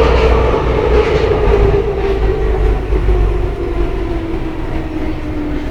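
Budapest Metro line 2 train running in the tunnel, heard from inside the passenger car: a low rumble under a motor whine that slowly falls in pitch and fades a little, as the train slows down.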